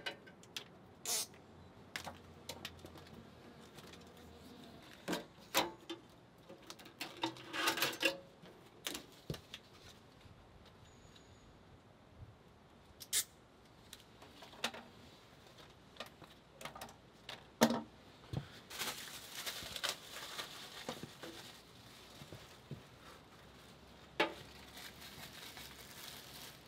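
Scattered light taps and clicks at irregular intervals, with a tight cluster of them about eight seconds in, and two stretches of soft rustling hiss later on.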